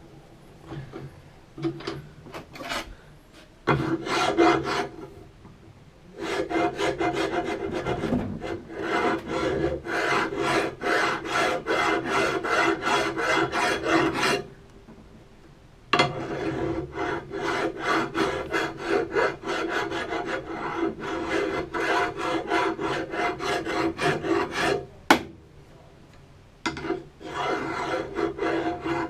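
Brake parts being scrubbed clean by hand with rapid rasping strokes on metal, in long runs broken by two short pauses. A single sharp knock comes just before the second pause.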